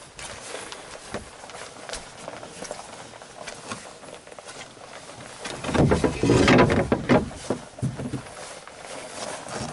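Footsteps crunching along a rocky, muddy trail while a canoe is carried overhead. About six seconds in there is a louder stretch of knocking and rumbling lasting a second or so.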